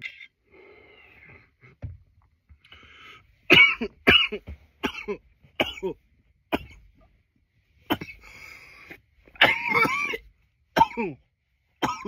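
A man coughing repeatedly, with breaths in between. There is a run of about five or six coughs a few seconds in, and another few coughs near the end.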